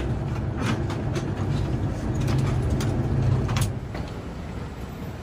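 Deep, steady rumble of a vehicle in motion, with a few sharp clicks and knocks. It drops noticeably quieter about three-quarters of the way through.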